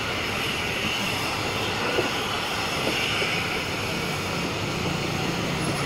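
Steady rumbling rush of a Nilgiri Mountain Railway metre-gauge passenger train in motion, heard from an open carriage window: wheels running on the rails with the noise of the moving train.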